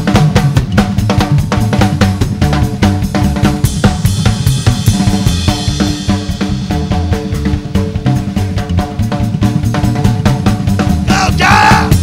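Live band instrumental: an upright bass plays a line of low plucked notes that step in pitch, under a drum kit keeping a fast, steady beat on snare and bass drum, with a cymbal wash about halfway through.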